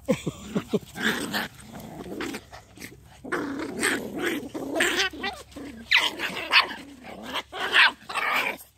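Puppies play-fighting, growling in repeated bursts as they wrestle.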